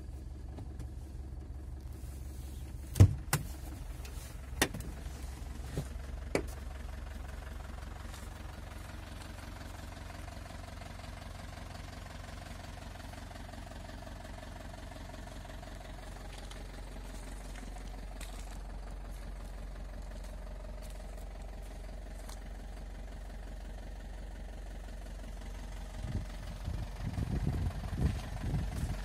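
Fiat Ducato 2.5 TDI four-cylinder turbodiesel engine idling steadily. A few sharp knocks and clicks come about three to six seconds in, and footsteps crunch on gravel near the end.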